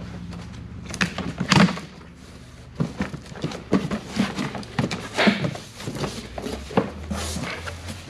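A cardboard box being opened and unpacked by hand: irregular knocks, thuds and rustles of cardboard and packing, with the loudest thump about a second and a half in.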